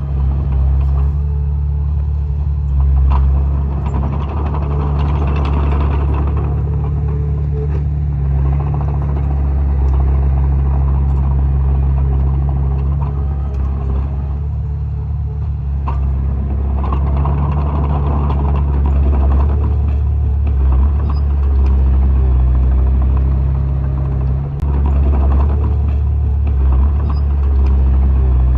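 Heavy earthmoving machine's diesel engine running steadily under load, a deep continuous drone with noisy mid-range swells and a few faint knocks.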